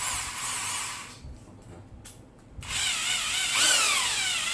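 Hitachi DH26PC rotary hammer drill running with no load in reverse, its motor whine rising and falling in pitch as the variable-speed trigger is pressed and eased. It winds down about a second in, a click follows, and it starts up again after about a second and a half.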